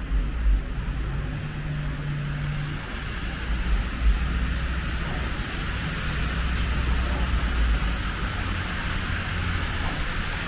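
City street traffic: vehicles passing with a steady low rumble and a constant hiss, and an engine's steady hum for a moment a couple of seconds in.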